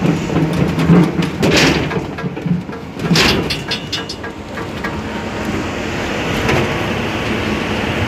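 Cattle hooves clattering and knocking on a cleated metal unloading chute, over a low steady hum, with a loud run of knocks about three seconds in. It gives way to a steady rushing noise.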